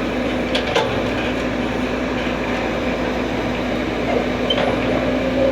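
Engine running steadily, a constant even hum with a few light clicks about half a second in.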